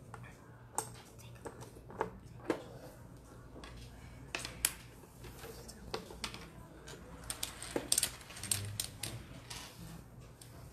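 Othello discs clicking as they are set down and flipped on the board and picked up from the pile: a string of sharp, irregular clicks that come thickest about eight seconds in.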